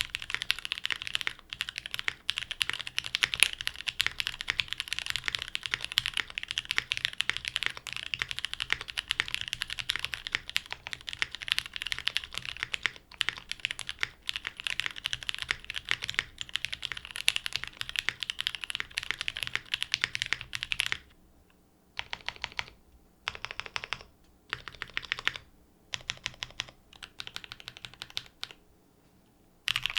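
Mechanical keyboard typing on a Monokei x TGR Tomo, top-mounted with an aluminium plate, lubed Pewter light-tactile switches and GMK keycaps, with some residual ticking from the switches. Fast continuous typing for about twenty seconds, then short separate groups of presses on the modifier keys with pauses between them, and quick typing again right at the end.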